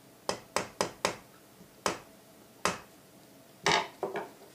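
Sharp metallic taps of a pin punch being struck, driving the trigger-unit pins into a Weihrauch HW80 air rifle's end cap. Four quick taps come first, then two spaced ones, then a louder cluster near the end.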